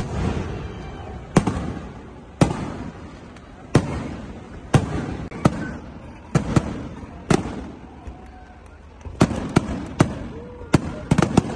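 Aerial firework shells bursting overhead, a sharp bang about every second, each trailing off in a rolling echo. After a short lull, a quicker run of bangs comes near the end.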